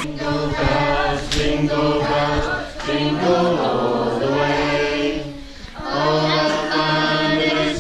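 Music: a choir of wordless voices holding sustained chords over a low held note, in two long phrases with a short break about five and a half seconds in.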